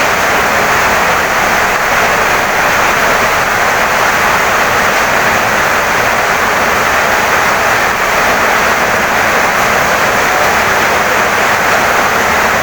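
Heavy rain pouring steadily onto a wooden house: a loud, even rushing hiss.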